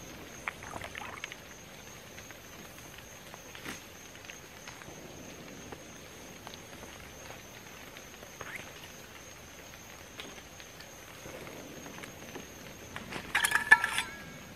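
Quiet woodland background with a faint steady high tone and scattered light ticks. Near the end comes a short run of metallic clinks with ringing from a stainless steel water bottle being handled.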